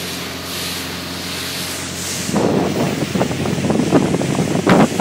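Speedboat underway at speed: a steady engine drone under a rush of wind and water spray. From about two seconds in, loud irregular buffeting comes in over it.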